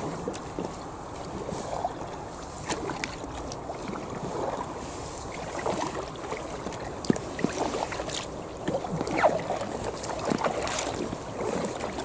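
Double-bladed kayak paddles dipping and pulling through the water, with irregular splashes and drips off the blades. Light wind rumbles on the microphone.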